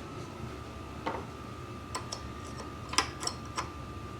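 About five sharp, irregularly spaced ticks from ignition sparks snapping across a spark tester as the Briggs & Stratton lawn mower engine is turned over, a sign that the ignition is making spark. A faint steady hum runs underneath.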